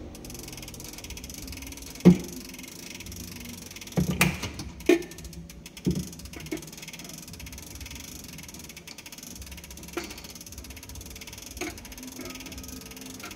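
A Howard Miller grandfather clock being wound with a hand crank: scattered knocks and clicks from the crank and winding gear. The sharpest comes about two seconds in, with a cluster between four and six seconds in.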